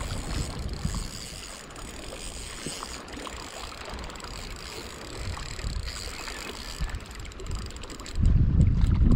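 Daiwa Fuego 3000 LT spinning reel cranked steadily against a hooked fish, with wind buffeting the microphone; the wind noise grows much louder about eight seconds in.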